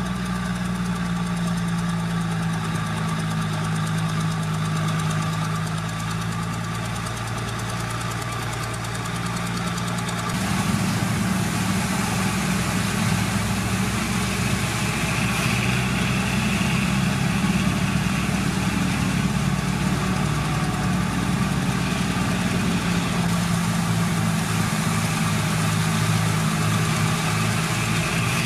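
Heavy diesel engine of earthmoving machinery running steadily with a low, even drone. About ten seconds in it grows louder and rougher.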